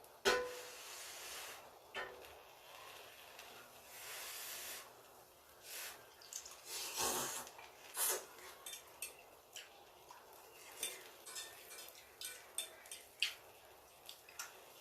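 Close-up eating sounds: chewing with many small clicks and mouth smacks, and a few longer rustling, scraping bursts.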